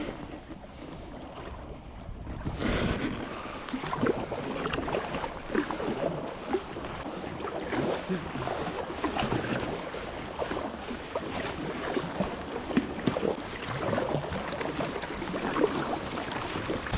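Sea water lapping and splashing irregularly against the hull of a Viking Profish 45 kayak, with wind buffeting the microphone.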